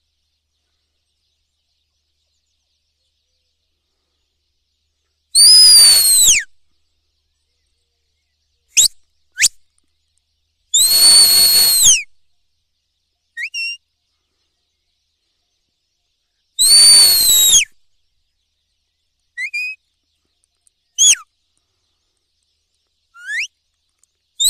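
A person's shrill whistle, given as herding commands to a working dog: about five seconds in, three long blasts of about a second each, spaced five to six seconds apart, each falling in pitch at its end, with a fourth starting near the end. Short upward-sweeping chirps come between the long blasts.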